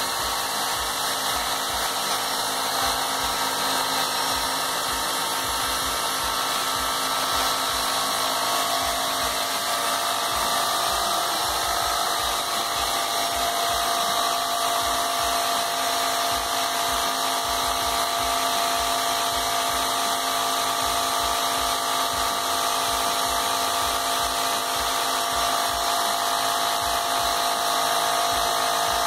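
Graco Magnum LTS 15 airless paint sprayer running steadily in prime mode, its electric motor and piston pump humming with a regular low pulsing as it purges paint back into the bucket through the prime tube.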